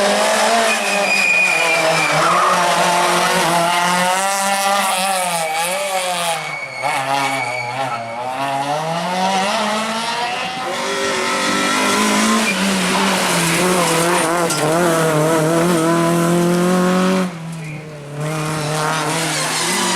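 Rally car engine at high revs, pitch climbing and falling repeatedly through gear changes and braking, with a deep drop and climb back up midway. The sound drops off abruptly for about a second near the end, then the engine comes back.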